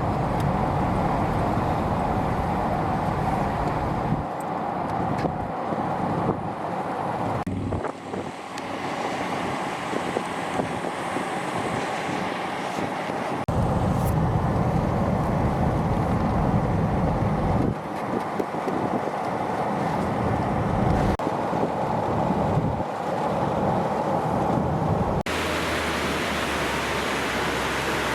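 A car driving, heard from inside: steady road and engine noise that swells and eases. Near the end it cuts abruptly to an even hiss.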